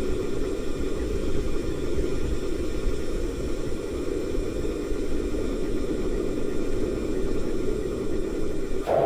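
Factory assembly-line ambience: a steady, low mechanical noise with no distinct clanks or knocks. Just before the end it shifts abruptly to a brighter, hissier noise.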